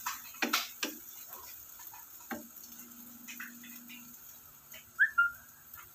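A wooden spatula and a metal fork knocking and scraping against a nonstick frying pan as pancakes are turned and lifted. Several sharp knocks come in the first second, one more about two seconds in, and a short high squeak about five seconds in.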